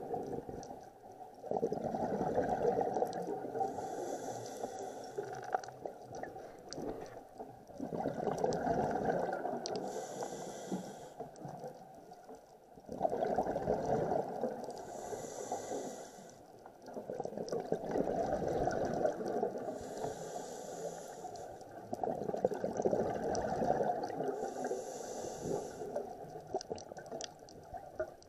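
A scuba diver breathing through a regulator. Five bursts of exhaled bubbles, each lasting three to four seconds, are separated by short quieter gaps at each inhale.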